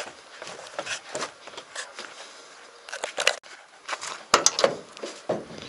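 Footsteps and scuffing as someone walks down wooden steps and across a gravel yard, then sharp clicks of a car's rear door latch and handle being worked, about four seconds in.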